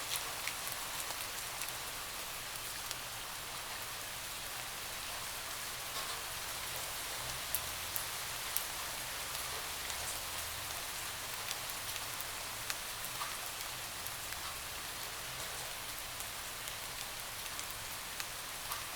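Steady rain with a constant hiss, and single drops ticking sharply now and then against a window.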